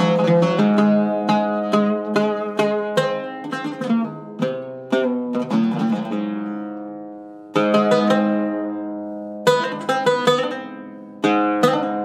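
Iraqi-style Zeryab oud with a cedar top, its strings picked with a plectrum, playing melodic phrases of quick single notes. Twice, about six and ten seconds in, a note is left to ring out and fade before the next phrase starts.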